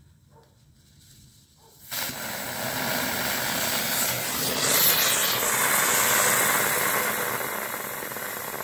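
Homemade potassium nitrate and dextrose sugar rocket motor igniting about two seconds in with a sudden loud rushing hiss that burns for several seconds and slowly fades. The motor lacks the thrust to lift its heavy, thick-walled housing.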